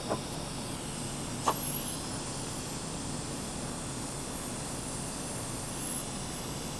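TIG torch tacking stainless steel: a sharp click as the arc strikes about a second and a half in, then a faint high, wavering arc whine over a steady hiss that stops near the end.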